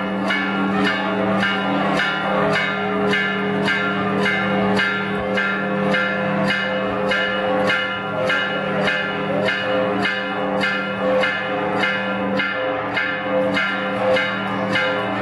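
Church bells ringing in a fast, steady peal, about two or three strikes a second, their tones ringing on between strikes.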